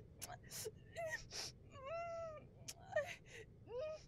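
A person sobbing: quick gasping breaths broken by short whimpering wails, with one longer wavering cry about two seconds in.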